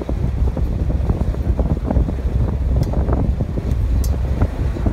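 Steady low rumble of a moving vehicle, heard from inside the cabin: engine and road noise.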